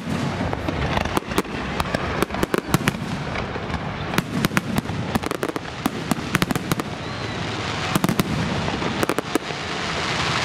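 Fireworks display going off: a rapid, irregular run of sharp cracks and pops over a steady rumbling haze.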